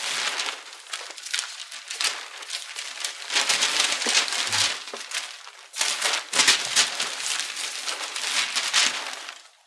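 Sheets of newspaper rustling and crackling as they are leafed through and shaken open, in irregular bursts. The rustling dies away just before the end.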